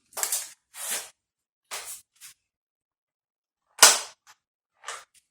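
Norica Goliath 88 air rifle firing one sharp shot about four seconds in, the loudest sound, after several short handling noises; a few light clicks follow.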